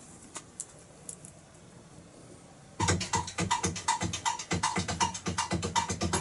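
Music from a television: a near-quiet stretch with a few faint clicks, then about three seconds in a fast, even drum beat starts abruptly.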